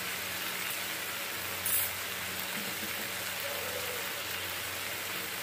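Tuna and onions frying in oil in a pan, a steady sizzling hiss, with one brief click about a second and a half in.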